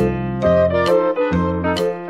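Background music with a steady beat, about two notes struck a second.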